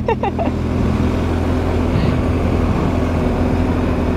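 BMW R1250 GS Adventure's boxer-twin engine running at a steady cruising speed, a constant low drone mixed with wind and road noise.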